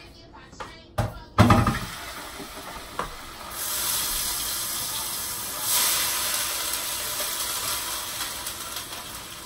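A couple of sharp knocks about a second in, then a kitchen sink tap running steadily, with the water getting louder twice as the flow is turned up.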